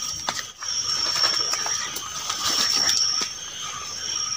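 Insects chirring steadily at a high pitch, with irregular soft crunches and rustles of footsteps through leaf litter and undergrowth.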